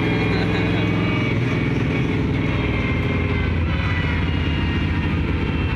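Monster truck's engine running steadily, heard from inside its open cab, its pitch holding nearly level.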